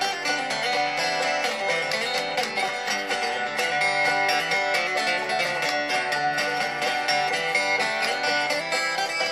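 Steel-string acoustic guitar picked in a country style: a busy run of quickly picked notes mixed with strums, with no singing.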